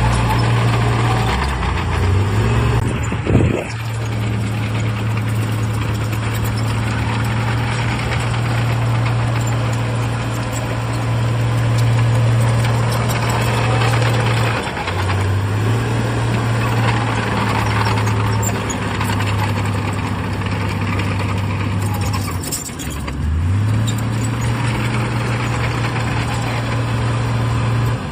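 Heavy diesel engine of earthmoving machinery running steadily at a constant pitch, which briefly drops and climbs back three times. A short sharp knock comes about three seconds in.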